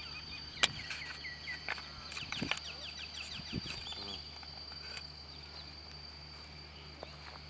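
Birds chirping, with a quick run of short repeated falling calls about two to three seconds in, over a steady high-pitched whine. A sharp click just over half a second in is the loudest sound.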